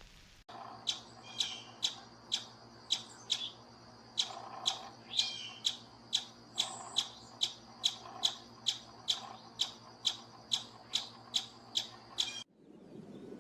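An animal's short, high-pitched calls repeated about twice a second over a steady low hum, stopping abruptly near the end.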